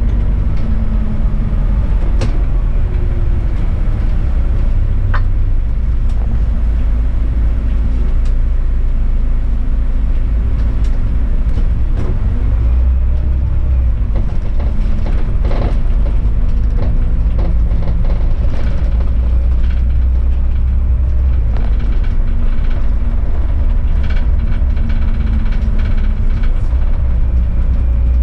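City bus driving on a snowy road: a steady low engine drone with road rumble, the engine note shifting in pitch now and then, and scattered short rattles and clicks.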